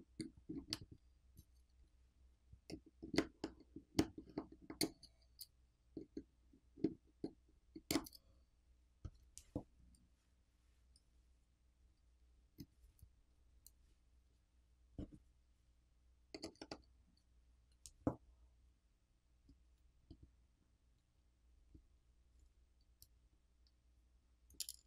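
Faint scattered clicks and light taps of a pry tool and fingertips on a smartphone's main board as its coaxial cable connectors are popped off. The clicks come thick in the first half and only now and then after.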